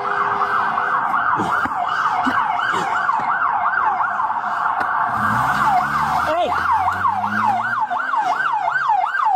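Police car siren in its fast yelp mode, its pitch sweeping rapidly up and down about three times a second. Fainter low sounds run underneath from about halfway through.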